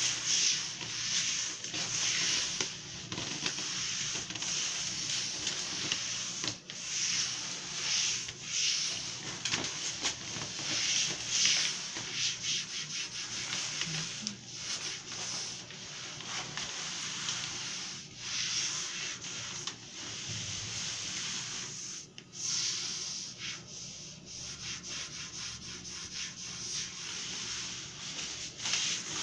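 A cloth rubbed back and forth over self-adhesive contact paper, pressing it flat onto a glass tabletop: a dry swishing hiss in repeated strokes.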